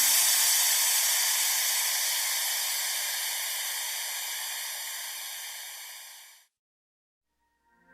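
The final hit of an electronic song: a noisy, cymbal-like crash with a hissing wash that rings out and fades away over about six seconds, followed by a short silence.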